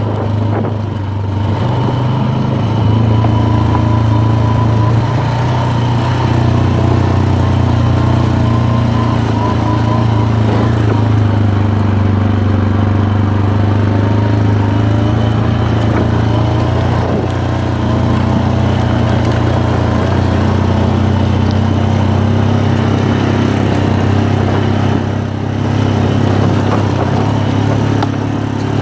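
ATV engine running steadily as the quad rides along a gravel road, with a thin high whine over the engine note. The engine eases off briefly near the end.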